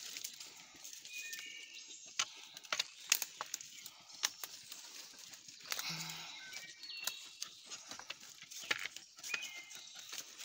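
Footsteps and small dogs' paws crunching through dry leaf litter and twigs on a forest floor: a string of sharp crackles and snaps, with a few short high chirps.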